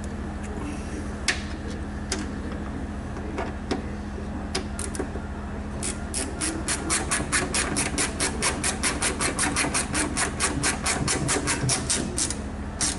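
Hand ratchet clicking in quick, even strokes, about five or six clicks a second, as Torx bolts holding a car door latch assembly are run down snug; a few single clicks come first.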